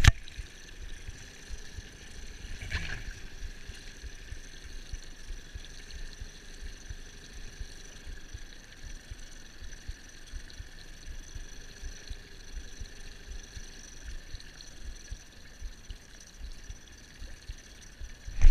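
Water lapping against the hull of a small boat, with wind rumbling on the microphone and a faint steady high whine underneath.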